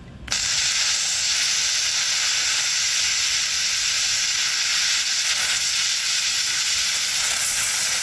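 Hand-held air plasma cutter firing and cutting through a cutting-edge bolt on a bulldozer blade, a steady loud hiss that starts abruptly just after the start.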